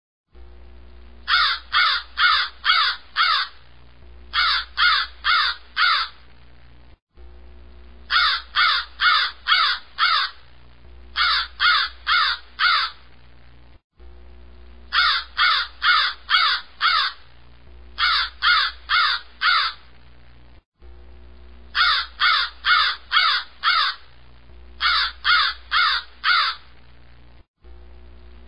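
Crow cawing in runs of harsh caws, five and then four, the same pattern repeating about every seven seconds as a looped sound effect over a steady low hum.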